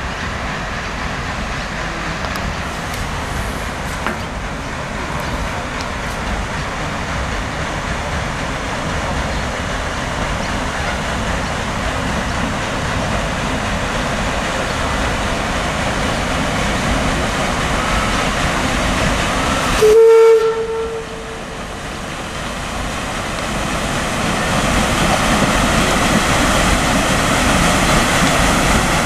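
Paddle steamer PS Melbourne under way, her steam engine and paddlewheel making a steady churning noise that grows louder near the end as she comes close. About two-thirds of the way through her steam whistle gives one short, loud blast.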